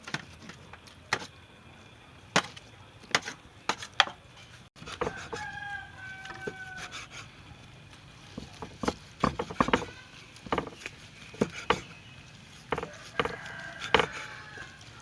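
Knife chopping cooked beef on a wooden cutting board: a string of sharp, irregular strikes. A steady-pitched call, like a fowl's, comes twice, around the middle and near the end.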